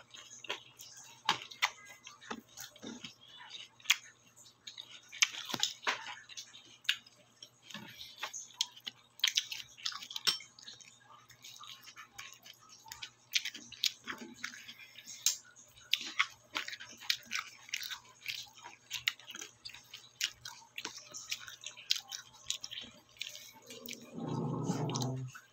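Close-up eating sounds of a person chewing roast pork with cucumber and lettuce: many short crisp crunches, smacks and wet mouth clicks throughout. A brief vocal sound near the end.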